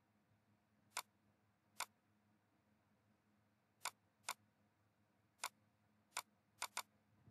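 Computer mouse buttons clicking eight times at irregular intervals, two of them in quick succession near the end, over faint low hum.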